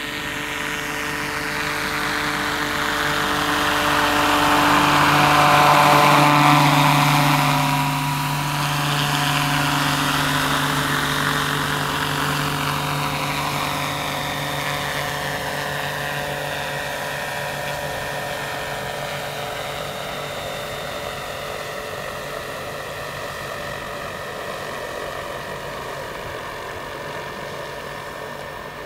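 Radio-controlled scale Eurocopter AS350 B3 Ecureuil helicopter flying past. Its rotor and drive whine grow louder and drop in pitch as it passes about six seconds in, then slowly fade as it flies away.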